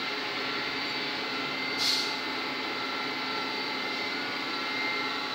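A steady mechanical hum with a few constant whining tones, like background machinery, and one short bright sound about two seconds in as shims and tappets are handled.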